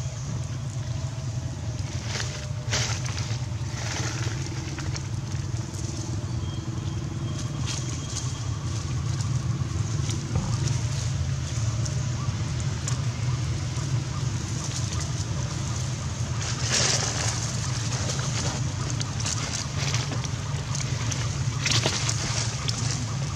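A steady low rumble under a few brief rustles of dry leaves as macaques move over the leaf litter, the loudest about 17 seconds in.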